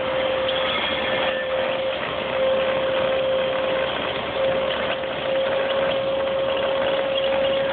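Hydraulic pump motor on a car-hauler trailer running with a steady whine over a constant hiss.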